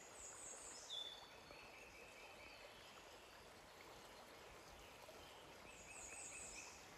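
Near silence of woodland: a faint steady hiss, with a distant bird's high song heard twice, near the start and near the end.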